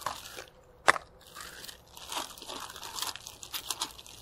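Plastic packaging rustling and crinkling as small telescope accessories are handled and unwrapped, with one sharp click about a second in.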